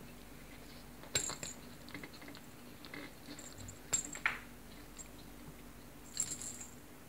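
A cat batting and grabbing at a pom-pom wand toy, giving three short bursts of sharp clicks and light jingling: about a second in, around four seconds in, and near the end.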